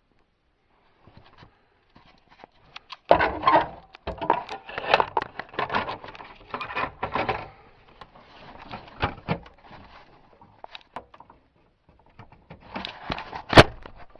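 Plastic dash trim cover being handled and pushed into place: irregular rattling, knocking and rustling of hard plastic, with one sharp, loud click near the end.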